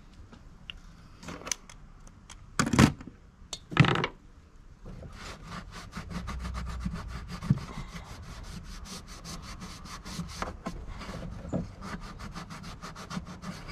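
Two loud thumps about three and four seconds in. Then a quick, even run of rubbing strokes, about six a second, as a shop rag scrubs a part in the engine bay.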